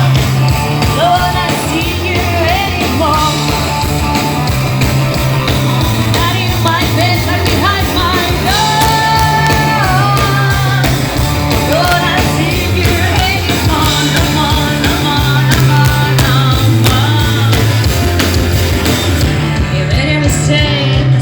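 Live rock band playing: a lead singer's voice over a full band, with a bass line stepping between notes and steady drums.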